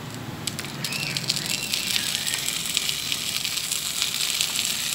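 Shredded chicken and capsicum sizzling and crackling in a hot non-stick frying pan as frozen sauce is spooned in and stirred. A few clicks come just before the sizzle sets in, about a second in.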